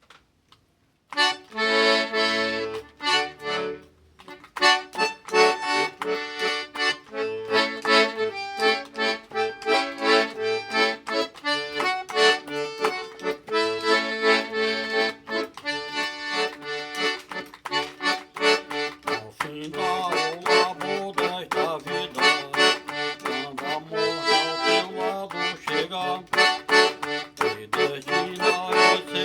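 Solo accordion playing a slow hymn melody in chords, with bass notes underneath. It starts about a second in and pauses briefly near four seconds before running on.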